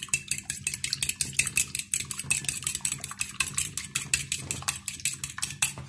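Raw egg being beaten with a metal fork on a ceramic plate: fast, even clicks of the tines against the plate, about seven a second.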